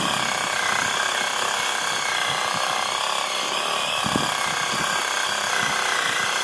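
Reciprocating saw (Sawzall) running steadily with a constant motor whine, its blade cutting through the wood of a small tree.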